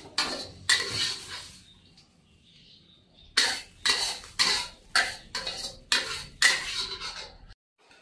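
Metal spatula scraping a wok, scooping stir-fried food onto a plate: a few quick scrapes, a short pause, then about seven more in a row.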